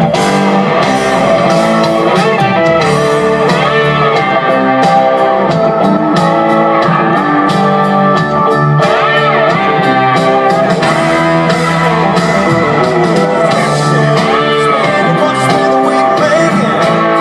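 Live band playing an instrumental country-rock passage, with guitar leading over a steady drum beat.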